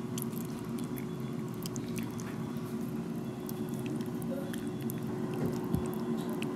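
Light cooking cream being poured over spiced pumpkin chunks in a ceramic baking dish, with scattered small clicks, over a steady low hum.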